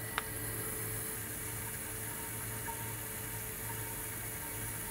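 Steady low hum and hiss from an electrically heated reflux still running, with cooling water flowing through its condenser. There is a single light click just after the start.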